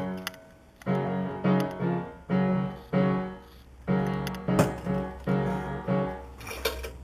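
Background music: piano chords struck in a steady rhythm.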